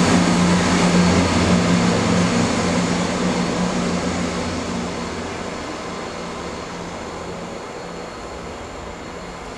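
CrossCountry Class 170 Turbostar diesel multiple unit pulling away after passing, its underfloor diesel engines droning with a steady low hum over wheel and rail noise. The sound fades steadily as the train recedes, the engine hum dying away about halfway through.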